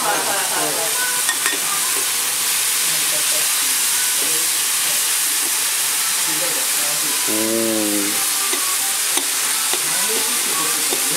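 Shredded cabbage and monjayaki ingredients sizzling steadily on a hot iron teppan griddle while metal spatulas chop and scrape them into a ring, with a few light spatula ticks. A brief low hum comes in about seven seconds in.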